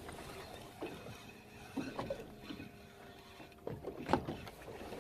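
Sounds aboard a fishing boat on open water: a steady wash of noise with scattered knocks and clunks on the deck and hull.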